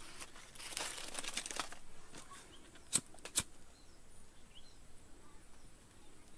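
Rustling, then two sharp snips of hand scissors about half a second apart, with a few faint bird chirps afterwards.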